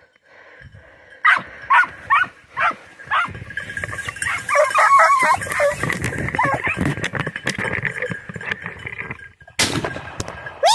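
A pack of hunting dogs barking in quick separate barks, then a denser run of overlapping barks and yelps. A short, loud burst of noise comes near the end.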